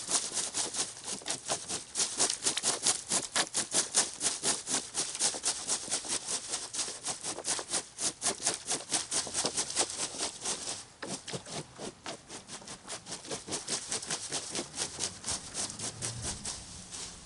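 Leaf rake scratching over the grass and mulched leaf bits in quick, rhythmic strokes, growing fainter after about eleven seconds.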